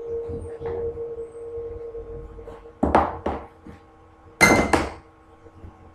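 Knocking and clanking from hands working at the base of a cast-iron radiator: a pair of sharp knocks about three seconds in, then a louder pair with a ringing metallic clank about a second and a half later, over a faint steady hum.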